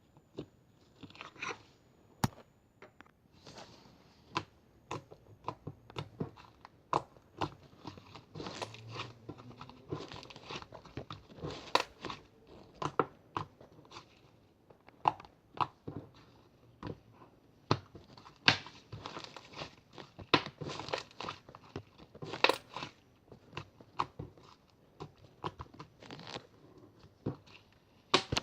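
Irregular crunching, like crisp food being bitten and chewed, with sharp cracks and short crackly bursts coming unevenly, several a second at times.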